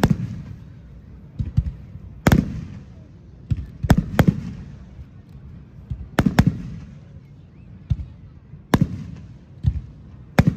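Aerial fireworks shells bursting in the final launch of a fireworks show: about a dozen sharp bangs at uneven intervals, each followed by a low rolling echo.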